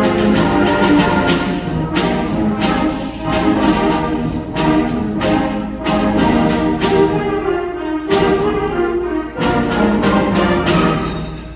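Student concert band playing a piece, brass chords over regular percussion strikes, the sound dying away near the end as the piece closes.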